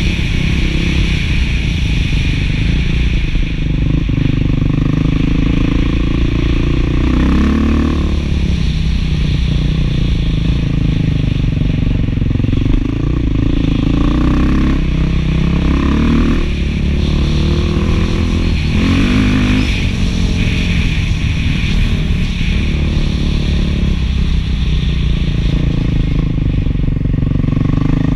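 Beta 500 dual-sport motorcycle's single-cylinder four-stroke engine running through a new FMF 4.1 muffler while riding a dirt road, its pitch rising and falling several times as the throttle is worked.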